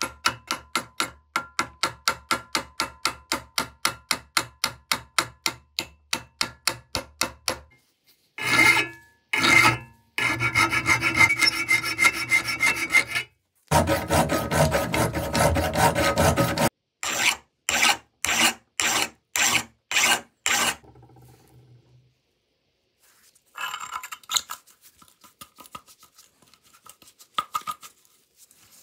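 Hand abrasion strokes on the trowel, scraping to clean it up. First come quick, even strokes about five a second for seven seconds or so. Then, after a brief pause, two long continuous passes of a few seconds each, then a run of slower strokes, with faint light clicks near the end.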